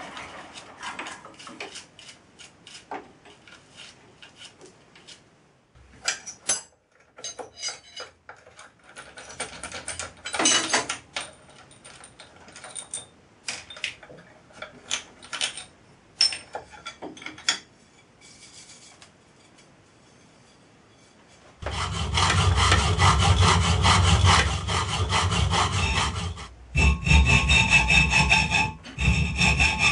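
Light clinks, taps and scrapes of metal parts and swarf being handled on a milling-machine table. About two-thirds of the way in, a hand hacksaw starts cutting an aluminium plate held in a bench vise: loud, steady back-and-forth strokes with a couple of brief pauses.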